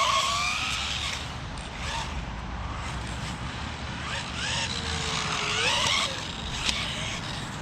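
RC buggy's electric motor whining as it drives, its pitch rising and falling, over a steady wash of tyre and running noise, with one sharp tick near the end.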